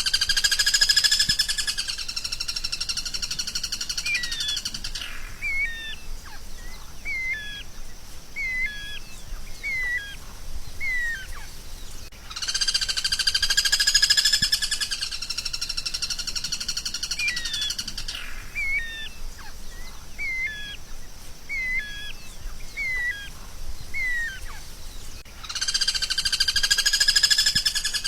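Songbird song played as a training (masteran) recording. A loud buzzy trill of about five seconds is followed by a string of sharp, hooked chirps spaced about half a second apart, and the same phrase comes round again roughly every twelve seconds.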